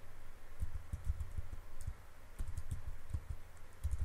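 Typing on a computer keyboard: irregular runs of keystrokes with a short pause about halfway.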